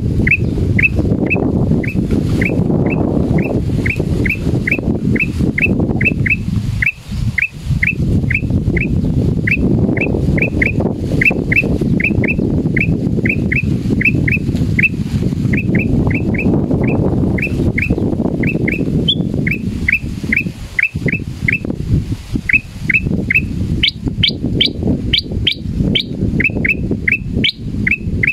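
Male black-crested bulbul giving a long run of sharp, downward-slurred whistled notes, about two to three a second, with a few higher-pitched notes near the end. The uploader takes the calling as a sign of fright. A loud low rushing noise, like wind on the microphone, runs underneath.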